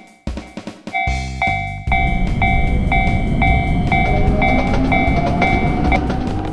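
Railroad crossing warning bell ringing a repeated two-tone ding about twice a second. A train rumbles past from about two seconds in. The bell stops shortly before the end.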